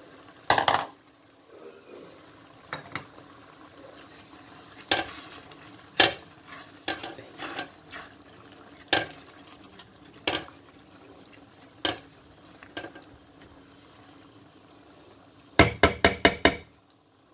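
A metal spoon scraping and knocking against a metal pan as chana dal is stirred into spinach frying in oil, with a faint sizzle underneath. Near the end comes a quick run of about six sharp taps.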